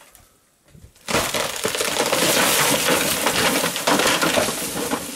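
A tree crashing down as an African elephant pushes it over. About a second in comes a sudden loud crack of snapping wood, followed by several seconds of crackling, breaking branches, easing off near the end.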